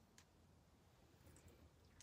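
Near silence, with a few faint clicks from a loaded tortilla chip being picked loose by hand: one just after the start and two fainter ones near the end.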